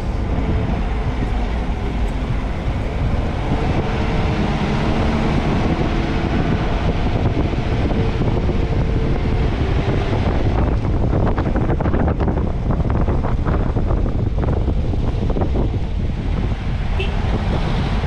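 Car driving, with steady engine and road rumble and wind on the microphone; in the second half a run of short knocks and rattles, as over a rough road.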